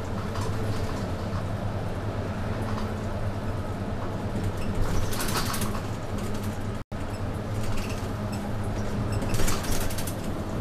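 Cabin sound of a moving city route bus: the engine runs with a steady low drone under road and tyre noise, with two short rushes of hissing noise about five and nine seconds in. The sound drops out for an instant about seven seconds in.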